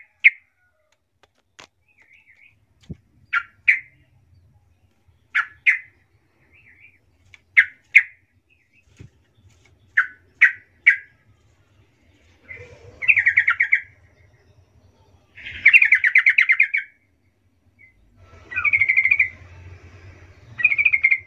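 Yellow-vented bulbul calling: short sharp notes in pairs every couple of seconds, then two longer, rapid bubbling chatters in the second half and clear whistled phrases near the end.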